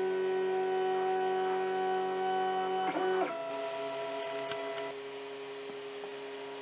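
Flashforge Creator 3D printer humming steadily while its hotend and bed heat up. A brief wavering sound comes about three seconds in, after which the hum changes tone and grows quieter.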